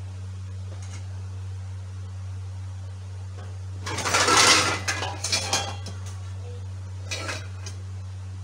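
Metal cookware clattering, loudest for about two seconds in the middle, with a shorter clatter near the end, over a steady low hum.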